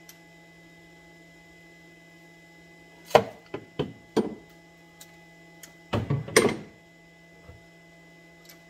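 A few sharp knocks and clatters of hand tools and parts being handled: about four around three to four seconds in, then a louder cluster around six seconds in. A steady electrical hum runs underneath.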